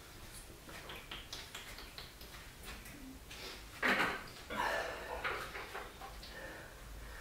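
Light clicks and knocks of a drinks bottle and small objects being handled and set down on a wooden sideboard, with a louder clatter about four seconds in.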